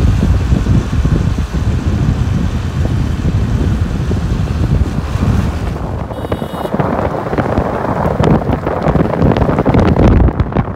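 Wind buffeting the microphone over the low rumble of a car driving. From about six seconds in, a rougher crackling hiss joins it.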